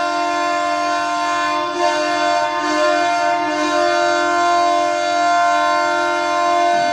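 Ottawa Senators' NHL goal horn blowing: one steady, low horn tone with many overtones, held continuously and cutting off near the end.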